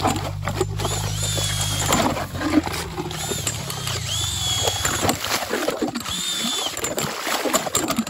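Makita cordless drill turning an ice auger as it bores down through lake ice: a steady motor hum with the crunching and grinding of the blades in the ice. About halfway through the hum fades out, leaving irregular scraping and crunching.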